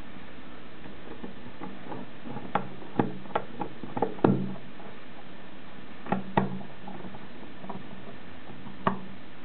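Screwdriver tip clicking and knocking against the screws and sheet-metal bottom cover of a Playon!HD media player: a scattering of sharp, irregular clicks, some ringing briefly, the loudest about four seconds in.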